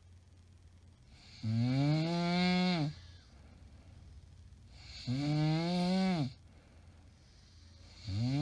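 A woman snoring loudly in her sleep: drawn-out, droning snores about three seconds apart, each rising slightly in pitch and dropping away at its end. Two full snores, with a third starting near the end.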